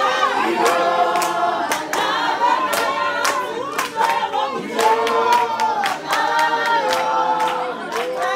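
A group of women singing together in unison, holding long notes, to steady hand clapping about twice a second.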